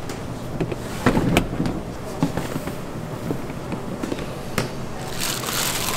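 Sharp knocks and clatter from bakery work, loudest about a second in, then a short hissing rush near the end.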